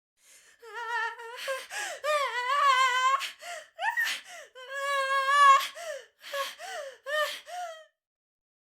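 A woman's gasping, whimpering labour cries: a run of high-pitched, wavering moans broken by short gasps. They stop about eight seconds in.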